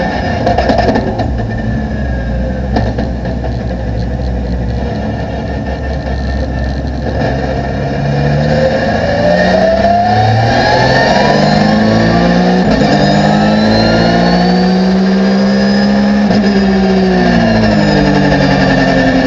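Porsche GT3 R racing car's flat-six engine heard from inside the cockpit. It runs at low revs for the first several seconds, then about eight seconds in it accelerates hard, the revs climbing and dropping back at each upshift. Near the end the revs fall off as the car slows.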